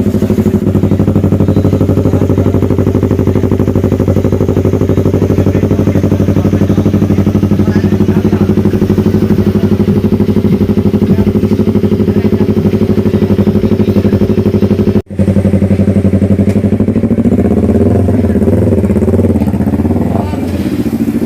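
Yamaha R3's 321cc parallel-twin engine running steadily through an aftermarket open-pipe muffler. The sound drops out briefly about three-quarters of the way through, and afterwards the engine note wavers a little in pitch.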